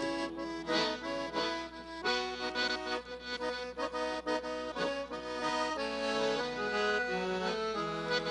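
Accordion playing a lively traditional gaúcho tune of chords and quick melody notes: the instrumental break between sung trova verses.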